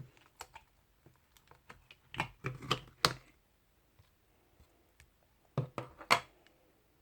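Irregular taps and knocks in a small room: a cluster of several about two to three seconds in, and a few more near six seconds in.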